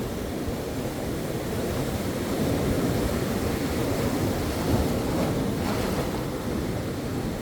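Ocean surf: waves washing ashore in a steady rush, swelling slightly in the middle.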